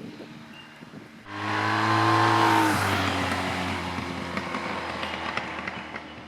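1986 Honda VF1000F's V-four engine on its stock exhaust, passing by under power. The engine note comes in suddenly about a second in, drops in pitch as the bike goes past, then fades away.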